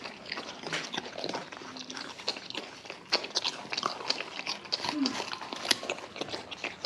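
Two wombats crunching and chewing raw carrots close up: a fast, irregular run of crisp bites and crunches.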